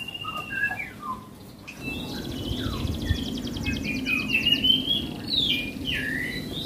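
Caged songbirds singing: clear whistled notes and short falling calls, then from about two seconds in a fast rattling trill and quick chirps over steady background noise.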